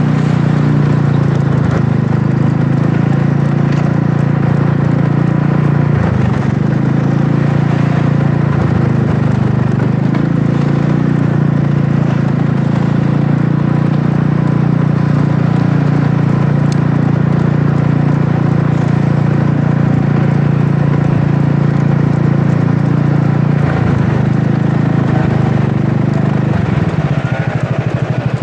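Wolf Rugby 150cc scooter's single-cylinder engine running steadily at low speed. Near the end it drops lower and its pulses become distinct as the bike eases off.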